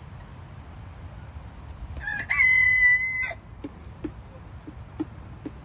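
A rooster crows once, about two seconds in: a single short crow of about a second and a half, with a brief rising start and then a steady held note.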